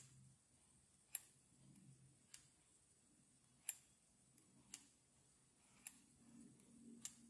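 Dog bone driveshaft sliding back and forth inside a Losi LMT RC monster truck's rear axle housing as it is tilted, clicking sharply about once a second, seven times. The owner takes this axle noise for normal play of the dog bone, not a fault.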